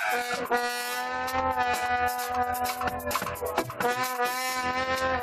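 Live band with a horn section of trumpet, trombone and saxophone playing long held notes that change a few times, over drum hits.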